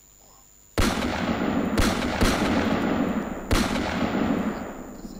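Heavy gunfire: a sudden blast about a second in, followed by three more sharp reports over the next three seconds, over a dense rumble that slowly fades near the end.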